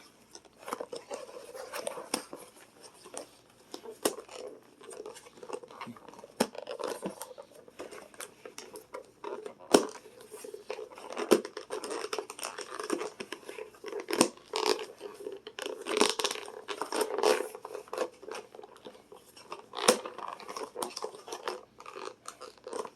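Thin plastic takeout container crinkling and clicking as it is handled and pressed shut, with many sharp snaps and crackles.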